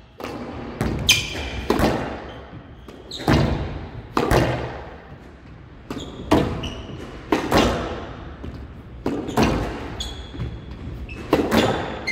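Squash rally: sharp smacks of racket on ball and ball on wall and floor, irregularly about once a second, each echoing in a large hall. Short high squeaks, from shoes on the court floor, come between some of the hits.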